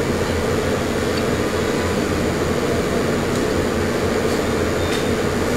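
Steady low mechanical hum with a few faint ticks.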